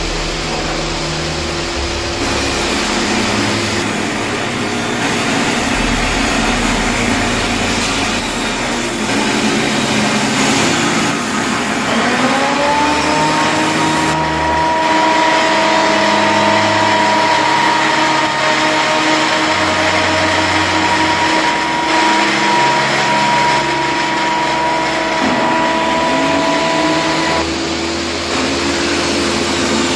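Woodshop power tools running: a steady noisy roar throughout, and about twelve seconds in a motor whines up to speed and holds one steady pitch for about fifteen seconds before stopping.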